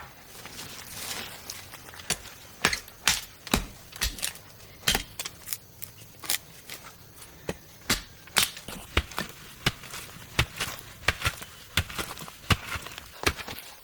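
A series of sharp, irregular knocks and strikes, about one to two a second, with some rustling in the first couple of seconds.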